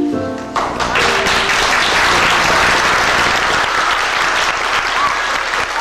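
Audience applauding, starting about half a second in as the last notes of a piano and brass musical number fade.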